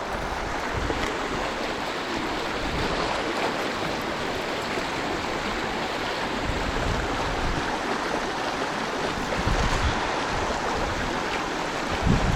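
Trout stream water rushing steadily, with a few brief low rumbles near the end.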